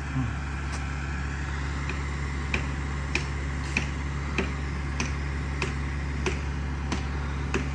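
Steady low hum of a running vehicle, with a light click repeating about every two-thirds of a second.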